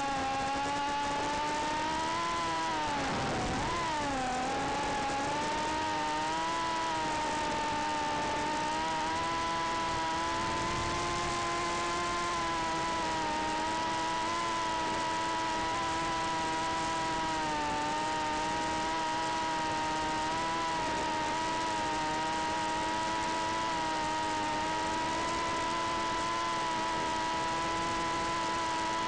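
Tinyhawk 2 Freestyle micro FPV quadcopter's motors whining steadily in flight. The pitch dips and wobbles about three seconds in, then holds nearly level.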